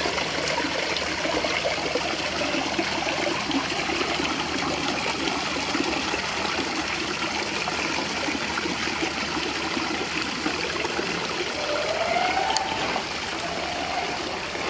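Water flowing steadily over the stones of an artificial garden rock waterfall, a continuous splashing trickle.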